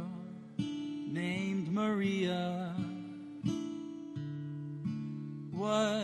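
Acoustic guitar playing the opening of a ballad, with strummed chords and held notes.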